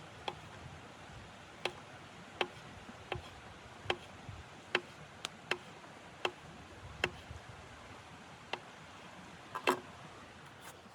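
Wood burning in a wood stove, crackling: about a dozen sharp, irregularly spaced pops over a faint steady hiss, the loudest near the end.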